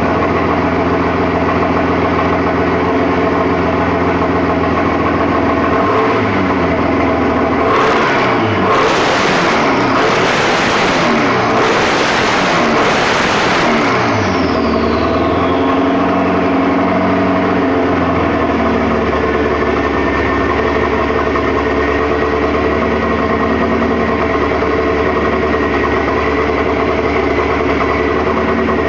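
Turbocharged 2387 cc methanol-fuelled VW Type 1 air-cooled engine in a dragster, idling, then revved by hand about five times in quick succession. Afterwards a high whine falls in pitch and holds steady over the idle.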